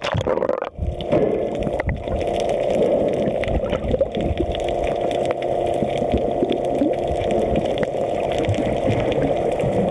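Underwater sound through a submerged camera: a steady muffled rush of water with bubbles and small clicks, starting once the camera goes under about a second in.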